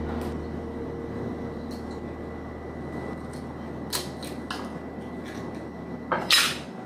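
Eggs being cracked and their shells pulled apart over a ceramic mug: a few light clicks and knocks, with a louder knock about six seconds in, over a steady low hum that stops shortly before the end.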